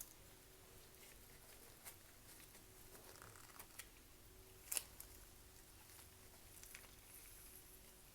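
Near silence broken by a few faint clicks and light taps from handling kitchen utensils while a spoonful of lemon juice is measured out; the clearest click comes just under five seconds in.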